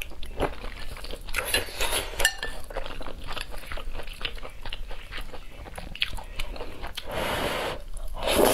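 Close-miked chewing of spicy instant noodles, with many small wet clicks and smacks. Near the end comes a longer, loud slurp as a mouthful of noodles is sucked in.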